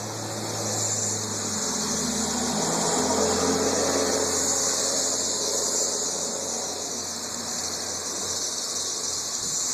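Chorus of 13-year periodical cicadas: a steady, high-pitched droning hiss from many insects calling together, with no break.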